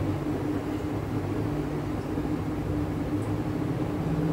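Steady machine hum with an unchanging low drone.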